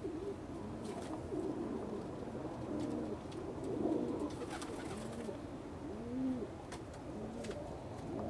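Several domestic pigeons cooing, their low, rising-and-falling coos repeating every second or so and often overlapping.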